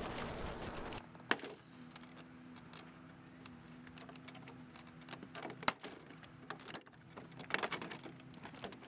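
Faint clicks and light knocks from a Chevy HHR's plastic interior door panel being pried off its retaining clips, a sharp click about a second in, another near the middle and a few small ones near the end, over a faint steady hum.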